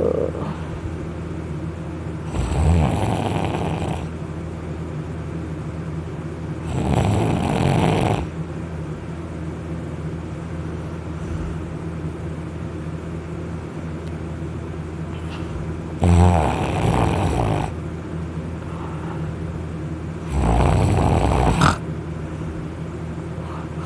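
A person snoring loudly in heavy sleep after drinking alcohol, lying on their back: four snores, each about a second and a half long, with uneven pauses between them.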